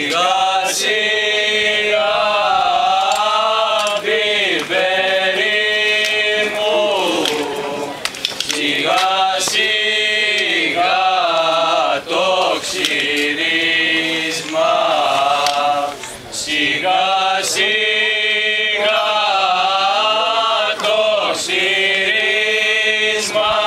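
A group of male voices singing a traditional Greek wedding song unaccompanied, in long, drawn-out, wavering phrases with short breaks between them.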